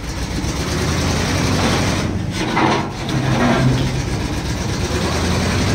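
An old fire truck's engine running at low speed under load as the truck creeps up onto a flatbed trailer, picking up briefly about halfway through.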